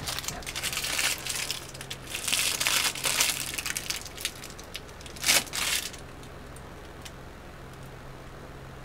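Clear plastic piping bag crinkling as it is squeezed and scrunched in gloved hands, in several rustling bursts over the first six seconds, then it stops.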